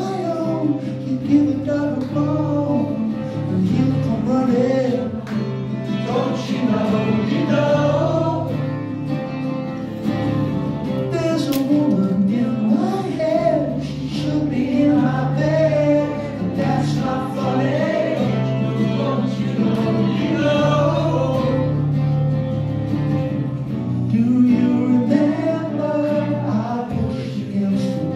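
Live acoustic guitar strummed under a man singing lead into a microphone, with several other men singing along.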